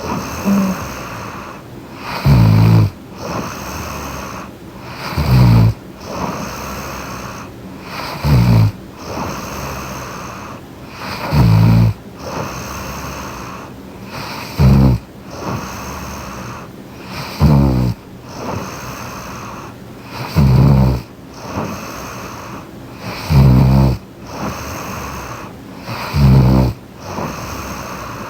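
A sleeping woman snoring close to the microphone: a loud, low rattling snore on each in-breath, about once every three seconds, nine in all, with a softer breath between.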